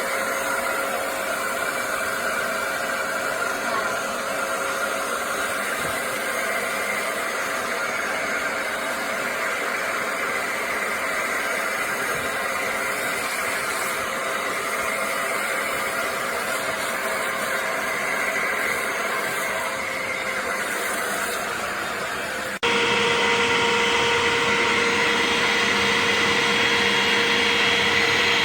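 BISSELL Little Green portable upholstery cleaner running, its motor giving a steady whirring hum. About three-quarters of the way through, the sound jumps suddenly louder with a slightly different pitch.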